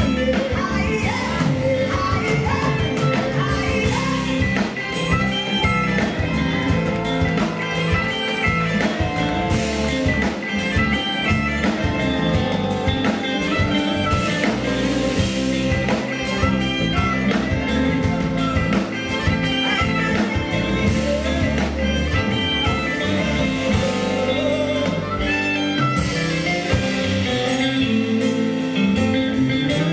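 Live afro-soul band performing a song, with a woman singing lead over guitar, bass and drums keeping a steady beat.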